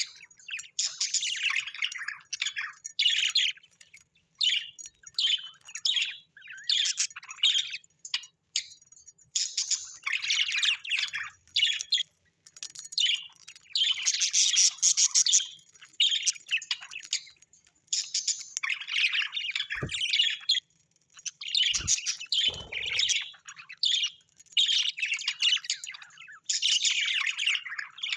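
Birds chirping and chattering in quick bursts with short pauses between them, with occasional squawks. A few brief low knocks sound around twenty seconds in.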